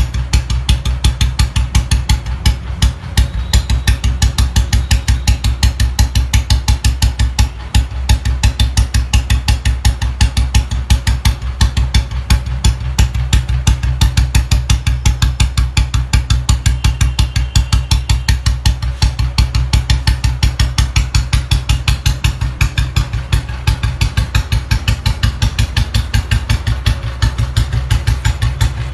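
Old Royal Enfield Bullet G2's single-cylinder four-stroke engine idling steadily, its exhaust giving the even, slow 'dug-dug' thump at about five beats a second through a short bottle (Mini Punjab) silencer.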